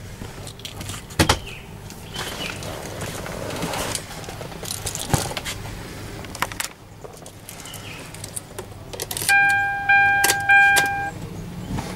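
Ignition keys of a 2010 Hyundai H-1 jangling and clicking in the steering-column lock as the key is handled and turned. Near the end, a dashboard warning tone beeps steadily for about two seconds, broken by a couple of short gaps, as the ignition is switched on ahead of starting the engine.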